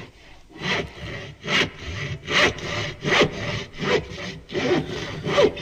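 Rhythmic rasping strokes, about two and a half a second, like a hand saw working through wood.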